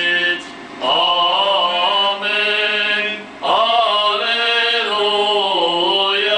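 An Armenian Apostolic priest chanting a church hymn unaccompanied, in long drawn-out notes that bend slowly in pitch, breaking off briefly twice.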